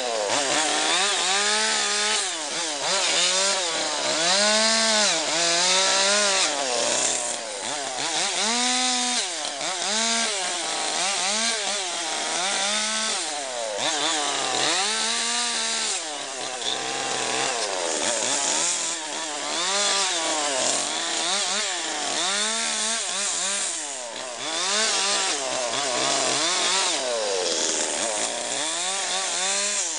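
Petrol chainsaw carving into a log, its engine revving up and falling back over and over, about once every second or two, as it makes short cuts into the wood.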